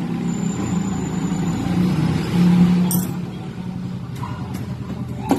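A steady low engine-like drone, with a sharp click about three seconds in and another near the end.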